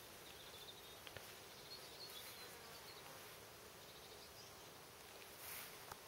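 Bees buzzing faintly, with a few short, high chirps now and then.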